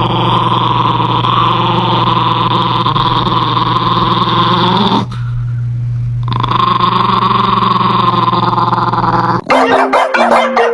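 A dog growling in a long, continuous rumble that breaks off for about a second midway, then resumes. Near the end the growl stops and a short run of marimba-like musical notes begins.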